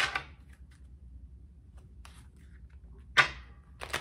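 A deck of tarot cards being shuffled by hand: faint light rustles and ticks for about three seconds, then a short, loud shuffle of the cards near the end.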